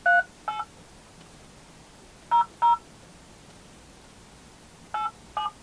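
Phone keypad dialing tones (DTMF): six short two-tone beeps, in three quick pairs with pauses between, as a mobile number is keyed in for an automated top-up line.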